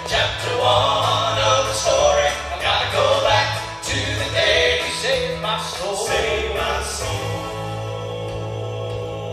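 Southern gospel vocal group singing in harmony over instrumental accompaniment with a steady bass line. About seven seconds in, the voices settle into a long held chord.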